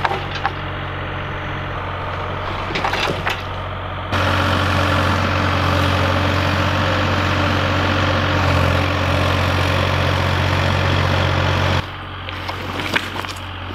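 Kubota mini excavator's diesel engine running steadily under load as it drags a pine log, louder for a long stretch in the middle. A few short knocks in the first few seconds.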